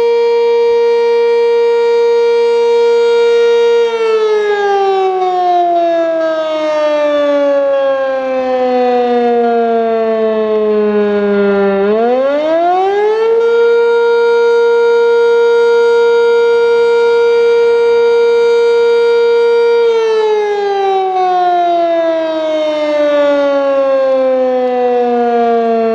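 Sentry 10V outdoor warning siren sounding a slow wail. It holds a steady pitch, then slowly winds down in pitch for several seconds. About halfway through it winds quickly back up and holds steady again, then starts winding down once more near the end.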